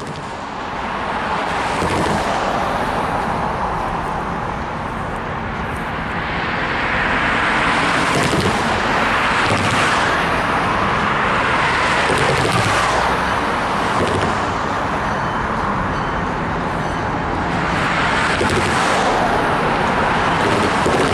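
Road traffic on a busy multi-lane highway: cars passing one after another, their tyre and engine noise swelling and fading several times.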